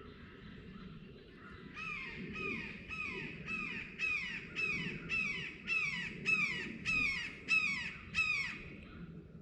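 A bird calling a rapid series of about a dozen falling-pitched calls, roughly two a second, starting about two seconds in and growing louder before stopping near the end.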